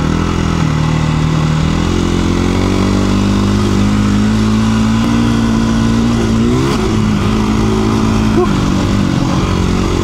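KTM 350 EXC-F single-cylinder four-stroke dirt bike engine running at speed, its pitch climbing about two seconds in and then holding, with brief dips near the middle and near the end, over wind rushing past.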